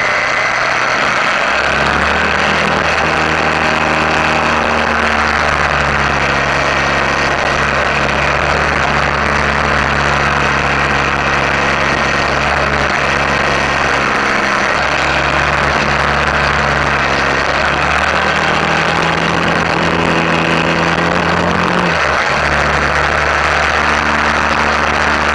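Suzuki V-Strom 650's V-twin engine running at steady road speed, its pitch shifting every few seconds, under a loud rush of wind and road noise.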